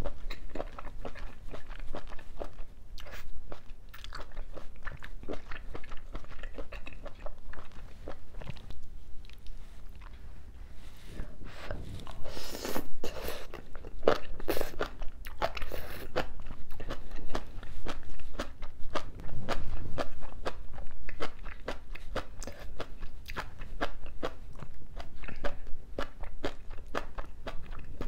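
Close-miked crunchy chewing and biting of spicy braised seafood with crisp bean sprouts, many short crisp crunches throughout, with louder wet slurps of strands sucked in around the middle.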